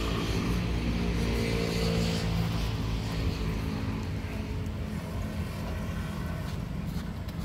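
A motor vehicle engine running steadily, heard as a low, even hum that holds one pitch.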